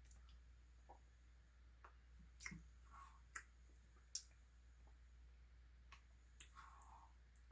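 Faint eating sounds from a person eating a soft-serve Blizzard: scattered wet mouth clicks and lip smacks, about seven or eight, with two short soft smacking sounds.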